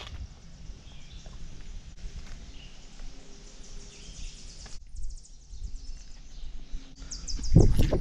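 Woodland ambience while walking: a high, rapidly pulsing animal call in the background over low wind rumble on the microphone, with a louder cluster of footsteps near the end.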